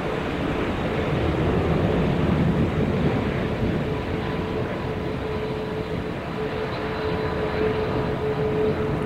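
The four Rolls-Royce Trent 900 jet engines of a Singapore Airlines Airbus A380-800 running at low taxi thrust close by. It is a steady rumble with a held whine that grows stronger in the second half.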